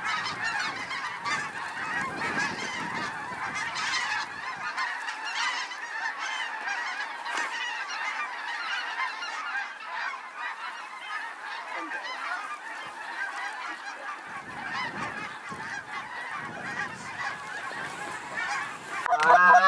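Huge flocks of snow geese, with some white-fronted geese among them, calling overhead: a dense, continuous chorus of countless overlapping high yelps and honks. About a second before the end, louder and closer goose calls break in over the chorus.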